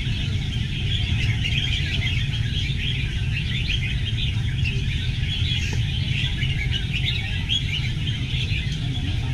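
Chorus of many caged red-whiskered bulbuls singing at once in a singing contest, a dense, unbroken jumble of short, bright chirps and phrases. A steady low rumble runs underneath.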